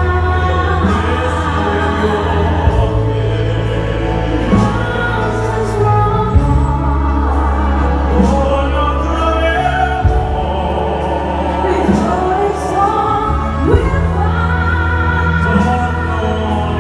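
An orchestra and big band accompany operatic-style singing. Sustained low bass notes sit under the voices, with a steady light beat.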